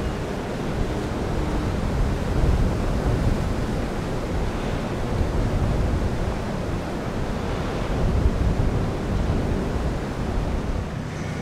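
Wind buffeting the microphone over the wash of choppy water: a steady, uneven rushing noise, heaviest in the low end.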